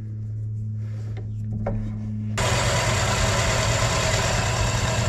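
Benchtop drill press motor running with a steady hum. About halfway through, its new tapered plug cutter bites into a wooden board to cut a bung, adding a loud, even cutting noise over the motor.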